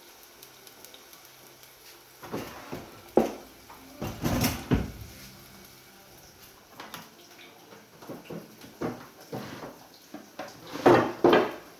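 Kitchen pots and utensils clattering: a string of irregular knocks and scrapes as food is handled at the stove, with the loudest clatters about three seconds in, around four to five seconds in, and near the end.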